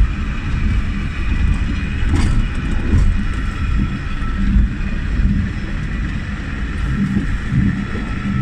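Water-powered funicular car of a cliff railway running down its steep track: a steady low rumble of the wheels on the rails with a faint high whine over it, and two light clicks about two and three seconds in.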